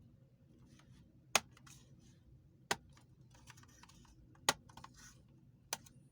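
Plastic snap-fit clips of an HP 14s laptop's bottom cover popping loose one at a time as the cover is pried open. There are four sharp clicks, roughly a second or more apart, with light plastic scraping between them.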